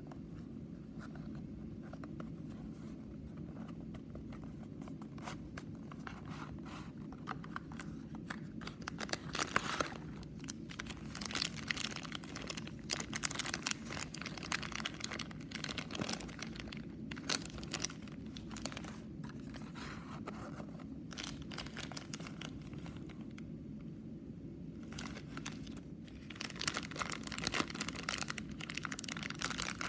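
Clear plastic bag of small jigsaw puzzle pieces crinkling and rustling in the hands, the pieces shifting inside. It starts quiet, and the crinkling begins about eight seconds in and comes in bursts. A low steady hum lies underneath.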